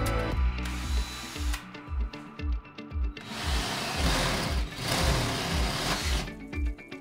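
Cordless drill driver with a masonry bit drilling into a ceramic wall tile, running steadily for about three seconds in the middle, over background music with a steady beat.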